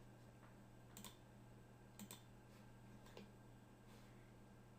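Near silence with a low steady hum and a few faint computer mouse clicks, about four of them, spaced roughly a second apart.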